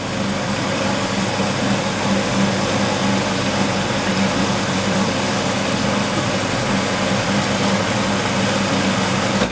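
Electric kitchen appliance motor running steadily as it grinds olives, a constant hum with a whirring hiss, cutting off suddenly at the end.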